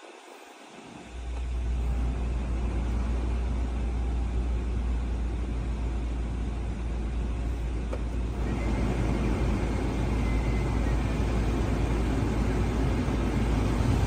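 HVAC blower of a fourth-generation Toyota 4Runner switching on about a second in, with a steady rush of air from the dash vents and a low rumble. About eight and a half seconds in the fan steps up to a higher speed and the air rush grows louder and brighter.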